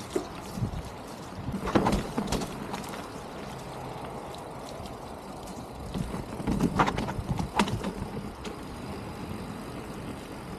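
Mountain bike rolling down a wet, muddy trail: steady tyre and riding noise, with sharp knocks and rattles from the bike about two seconds in and again around seven seconds in.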